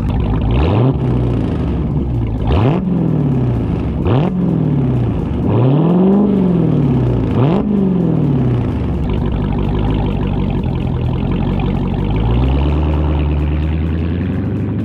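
Dodge Hellcat's supercharged 6.2-litre Hemi V8 exhaust revved five times in quick blips, each rising and falling in pitch, then settling to a steady idle.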